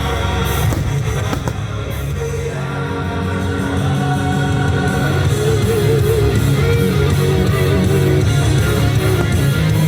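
Loud rock music with guitar and a sung vocal line, a pyromusical show's soundtrack.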